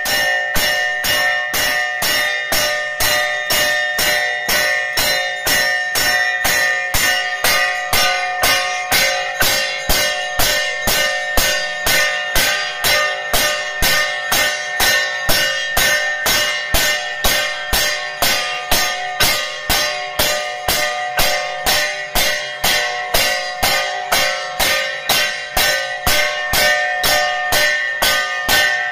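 Temple bells rung for an aarti, struck in a fast, even, unbroken rhythm, with their ringing tones carrying on between strikes.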